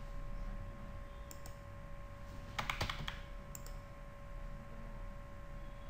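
Computer keyboard and mouse clicks: a few single clicks and a quick run of keystrokes about two and a half seconds in, over a faint steady electrical hum.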